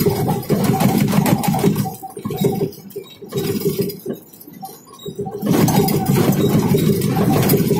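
A vehicle engine running while driving, with a steady low drone. It drops away for a few seconds in the middle, as if easing off the throttle, then picks up again.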